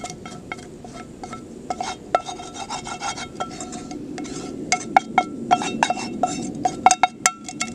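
A utensil scraping and tapping inside a metal skillet, scooping cooked scrambled eggs out. The pan rings at each stroke, and the strokes come quicker and louder in the second half.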